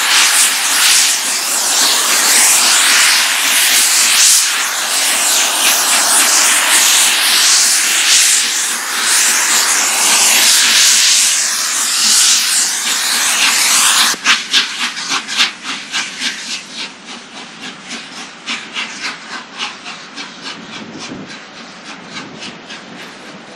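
LNER Peppercorn A1 three-cylinder Pacific 60163 Tornado working hard under load, a loud continuous rush of steam and exhaust. About two-thirds through the sound drops suddenly to a quieter run of regular rhythmic beats that fade as the train draws away.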